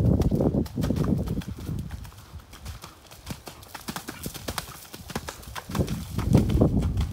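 Hoofbeats of a Friesian horse trotting on a wet sand arena, a steady run of sharp strikes. Louder low rumbling bursts come in the first second or so and again near the end.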